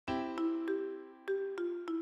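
Intro background music: a chord opens it, followed by a light melody of five short ringing notes.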